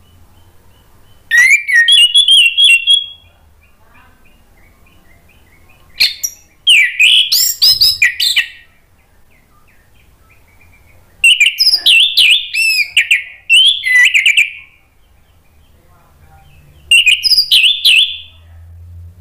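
Orange-headed thrush singing loudly in four bursts of rapid, varied whistled phrases, each one to three seconds long, with short pauses between them.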